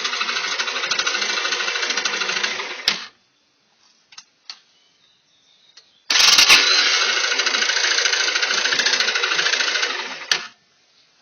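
Mitsubishi Triton's newly installed engine running with a fast, dense mechanical clatter, shut off about three seconds in, started again about three seconds later, and shut off once more near the end.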